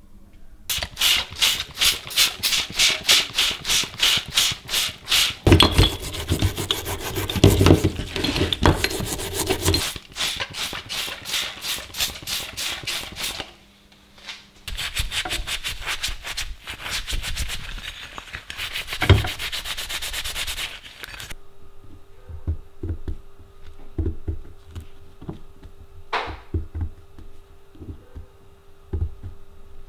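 Rusty grinder parts being scrubbed by hand: brisk rubbing strokes about three a second, in several bouts with short breaks. About two-thirds of the way in this gives way to quieter scraping and clicking, a pointed tool picking grime from gear teeth, over a steady hum.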